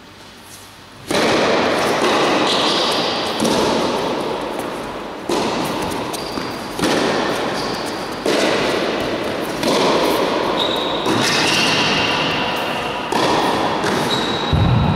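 Tennis ball struck by rackets in a rally on an indoor court. The first hit, the serve, comes about a second in, then about eight more hits follow every one and a half to two seconds, each trailing off in a long echo from the hall.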